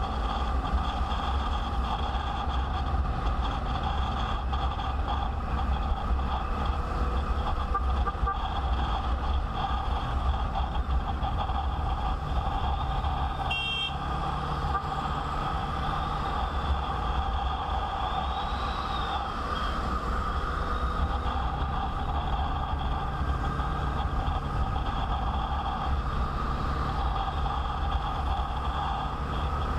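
Motorcycle on the move: steady engine drone over a low wind rumble on the microphone, with a brief high beep about a third of the way through.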